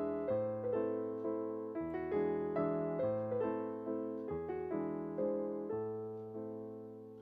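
Background piano music: a gentle melody of single struck notes, each fading away, growing quieter near the end.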